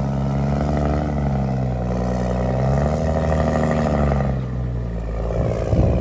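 Claas Xerion tractor engine running under load as it pulls a large reversible plough through stubble, its note rising and then falling again. Near the end the engine sound fades and gives way to a rough clatter.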